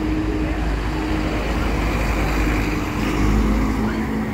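City bus's diesel engine running close by in street traffic: a deep steady rumble that grows loudest about three seconds in, over general road noise.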